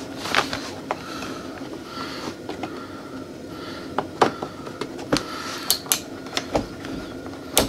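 Scattered light plastic clicks and knocks, more of them in the second half, as a switch and its wiring connector are pushed and fitted by hand into a Polaris RZR dash panel.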